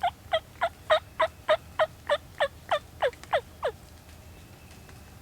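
Turkey yelping: a run of about thirteen evenly spaced yelps, roughly three a second, the last few dropping lower in pitch before the series stops almost four seconds in.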